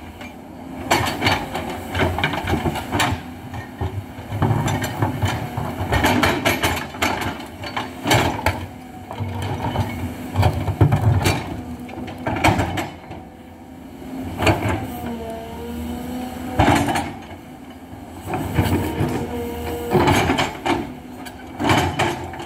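Hidromek 220LC crawler excavator at work: its diesel engine and hydraulics run steadily, with a hum that dips and rises in pitch partway through, over repeated knocks, cracks and scrapes as the bucket digs into soil, rock and wood.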